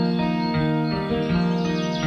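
Background music with steady held notes that change every half second or so.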